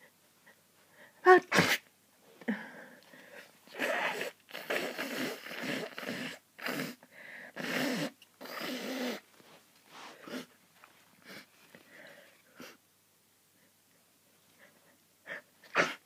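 A person sneezing in a hayfever sneezing fit. One loud sneeze comes about a second in, followed by a long string of shorter sneezes and breaths, then two quick sneezes near the end.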